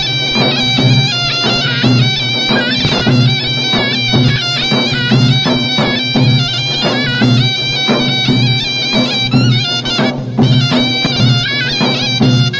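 Instrumental break of Tunisian mezoued folk music: a mezoued (Tunisian bagpipe) plays a fast, ornamented, reedy melody over steady hand-drum beats.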